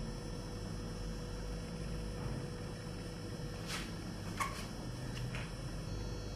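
Quiet room tone with a steady low electrical hum, broken by a few faint, short clicks a little past halfway.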